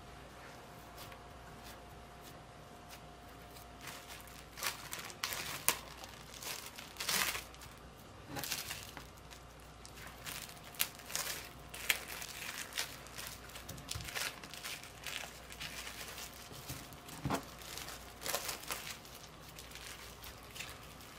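Plastic cling wrap crinkling and rustling in irregular bursts as it is folded around scone dough and pressed flat by hand, starting about four seconds in.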